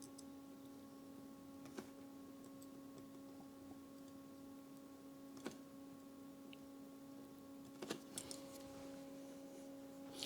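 Near silence: a faint steady electrical hum with a few soft clicks from handling small parts.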